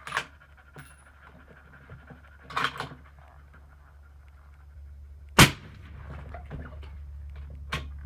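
A suppressed 6.5 Creedmoor rifle fires once, about five and a half seconds in, through a 7-inch Thunder Beast Ultra suppressor. The shot reads about 130½ dB at the shooter's ear. Before it come a few metallic clicks of the bolt being worked.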